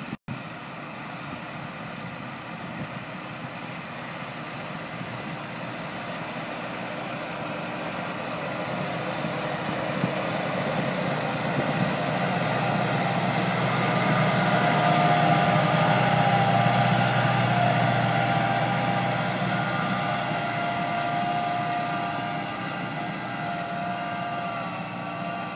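Kubota M135GX tractor's diesel engine working under load as it pulls a four-furrow Pöttinger plough through the soil. It grows louder as it comes near, is loudest a little past halfway, then eases slightly as it moves away. A steady whine rises over the engine around its closest point.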